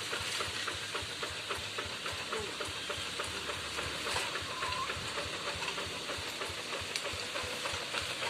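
Single-cylinder diesel engine of a two-wheel hand tractor running steadily, with a rapid, even beat of firing strokes over a hiss.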